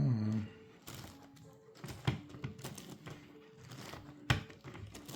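An 11x11x11 Rubik's cube being turned by hand: irregular plastic clicks and clacks as its layers are rotated, the loudest about two seconds and four seconds in. Faint held tones come and go behind the clicks, and a short low sound falls in pitch right at the start.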